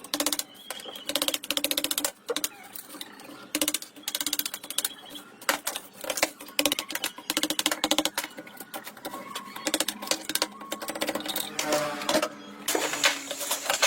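Rapid, uneven mechanical clicking and rattling from hands-on work on a rusty old water pump being restored.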